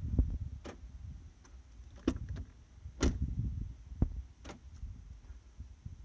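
Half a dozen sharp clicks and knocks, spaced irregularly, over a low rumble on the microphone.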